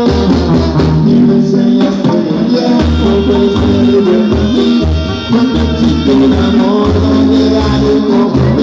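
Live Sinaloan banda music: trumpets and other brass playing between sung lines over a stepping tuba bass line and drums, recorded from the crowd.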